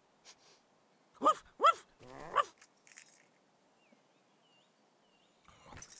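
Cartoon dog barking twice in quick succession, followed by a shorter, rougher call.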